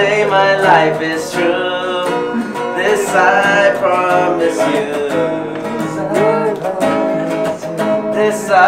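Acoustic guitar strummed with a group of men singing along, unamplified.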